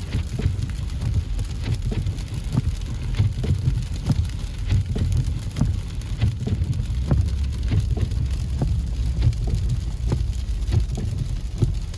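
Inside a car's cabin while driving through a snowstorm: a steady low rumble of the car on the road, with irregular light ticks of frozen precipitation striking the car, much like rain.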